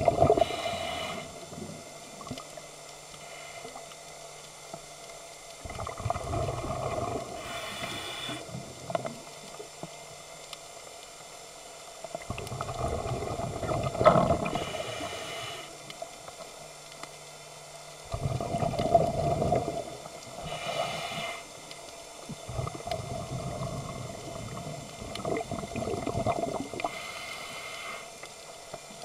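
Scuba diver breathing through a regulator underwater: a bubbling rumble on each exhale, then a short hiss on each inhale. The cycle repeats about every six seconds, about five breaths in all.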